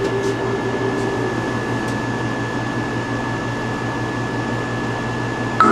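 Steady fan-like hum and hiss with a thin, high, constant whine. Music comes in suddenly just before the end.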